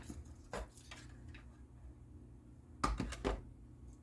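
Light clicks and knocks of small hard objects being handled: one about half a second in, then a quick cluster of three or four near three seconds.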